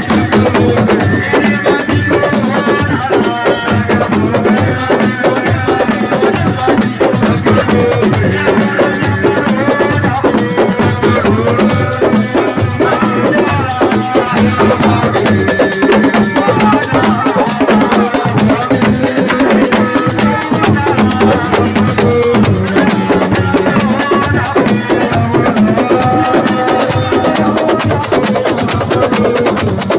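Senegalese assiko (siko) band music played live: dense drumming and percussion, with a melody running over it.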